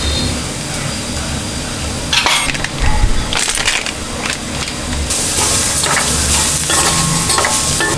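Cooking in a pan: a utensil knocks and scrapes against the pan while food fries, and the sizzling gets louder and denser about five seconds in. A steady low hum runs underneath.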